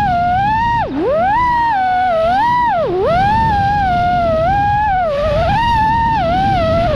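iFlight Nazgul Evoque FPV quadcopter's motors and propellers whining, the pitch wavering up and down with the throttle. Twice, about one and three seconds in, the whine dips sharply and climbs straight back.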